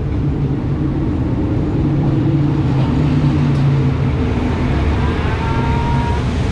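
Diesel locomotive pulling a passenger train slowly into the station along the platform. Its engine drone grows louder as the locomotive passes, is loudest about three seconds in, then eases slightly.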